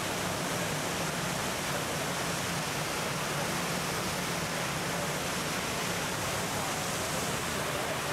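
Fountain water jets splashing steadily into the basin: a constant, even rush of falling water.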